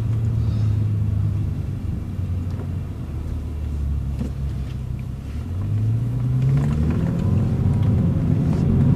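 Bentley's engine heard from inside the cabin, running with a low steady note, then rising steadily in pitch and getting louder from about halfway through as the car accelerates.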